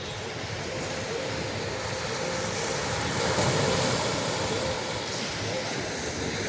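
Ocean surf washing onto the beach as a steady rushing noise, with a wave breaking and swelling about halfway through.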